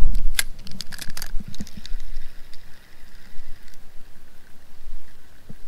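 Spinning reel being worked after a cast: a handful of sharp clicks in the first second or so, then a faint steady whir as the line is cranked in, stopping a little before 4 s. A low rumble sits under it on the microphone.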